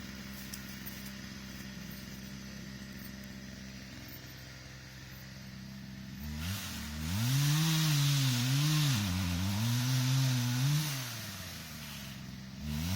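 Chainsaw idling steadily, then revved up about six seconds in and held at high speed for about five seconds, its pitch wavering up and down, before dropping back to idle and revving again at the end.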